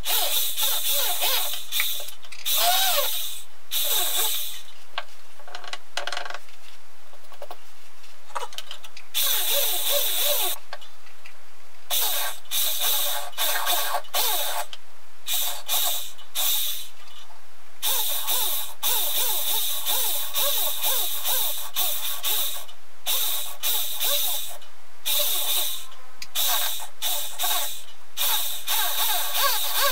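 Small drill bit in a hand pin vise cutting into cast pewter: a scratchy, hissing rasp with faint squeaks. It comes in stretches of one to three seconds with short pauses between.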